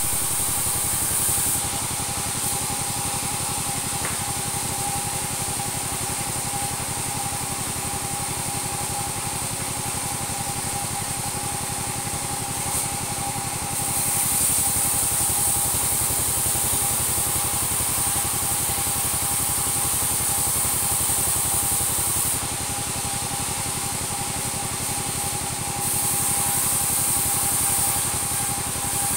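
Two-stroke chainsaw idling steadily, with a high hiss that comes and goes.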